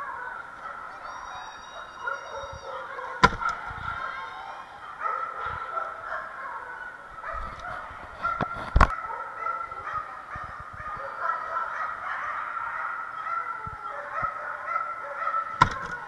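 Many dogs barking and yelping over one another in a large echoing hall, with three sharp bangs spaced several seconds apart from the flyball box as dogs hit its pedal to release the ball.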